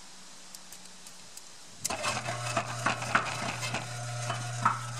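About two seconds in, the cement mixer's new 1/2 hp Marathon electric motor switches on with a steady low hum. The belt-driven drum starts turning with a busy clinking rattle of loose metal parts.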